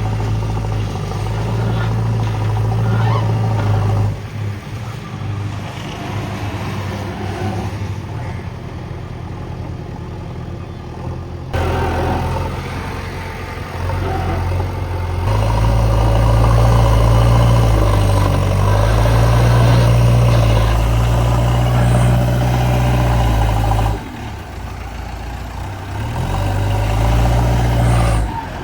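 JCB 3DX backhoe loader's diesel engine running, its revs repeatedly rising and falling as the machine works. It is high at first and drops about four seconds in, then picks up again. It runs hardest for a long stretch in the middle, eases off, and rises once more near the end.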